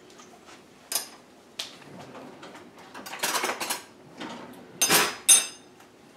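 Kitchen drawer opened and the metal utensils inside clattering as they are rummaged, with a few light clicks first and two sharp clinks about five seconds in, the second one ringing.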